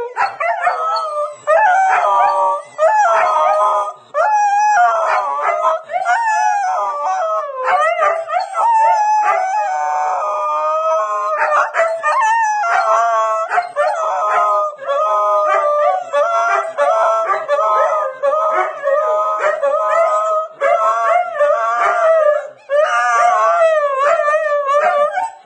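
Siberian husky howling loudly in long, wavering, up-and-down howls, broken by short pauses for breath. This is her answer to howling played back to her.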